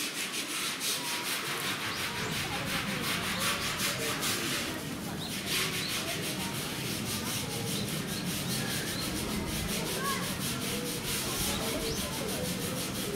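Indian crested porcupine rattling its hollow tail quills in a threat display: a fast, even, dry rattle that keeps going.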